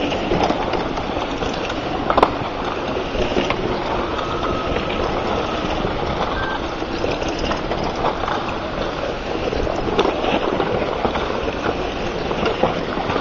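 Mountain bikes riding past on a dry dirt-and-gravel trail: a steady rushing noise of tyres on the ground, with a few sharp clicks and rattles.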